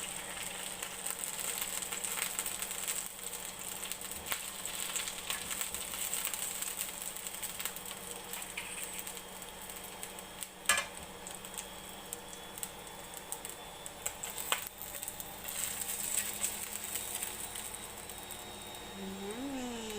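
Chicken sizzling and crackling steadily as it cooks, with two sharp knocks about halfway through and a short pitched sliding sound near the end.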